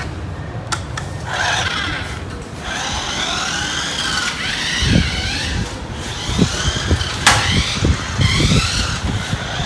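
Toy remote-control racing car running, its small electric drive motor whining, with wavering high tones throughout. From about halfway through there is a run of short knocks as the car bumps about.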